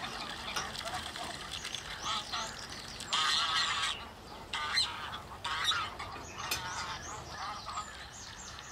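Domestic geese honking, many overlapping calls of different lengths, loudest and densest about three to four seconds in.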